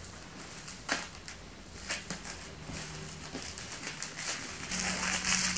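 Bubble wrap being pulled open from a parcel by hand: scattered crackles and clicks of plastic, with a louder rustle about a second before the end.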